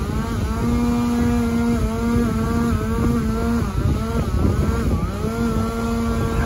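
Chainsaw running at high speed, its pitch dipping and recovering several times as it works through wood.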